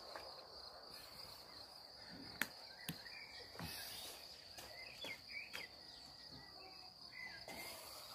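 Quiet countryside ambience: insects trilling steadily at a high pitch, with a few faint chirps and a single sharp click about two and a half seconds in.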